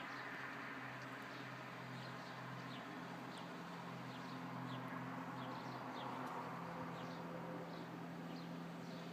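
Steady distant rumble of a Boeing 757 airliner passing high overhead, with birds chirping repeatedly in short, falling high chirps.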